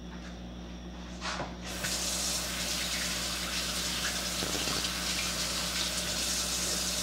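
Kitchen tap turned on about a second and a half in, then water running steadily into the sink.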